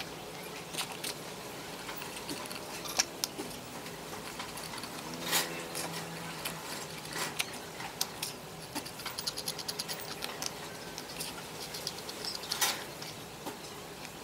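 Small clicks, taps and light scrapes of a metal spatula against a cut-down aluminium can and the wooden workbench as two-component glue is mixed, with a quick run of ticks about two-thirds of the way through.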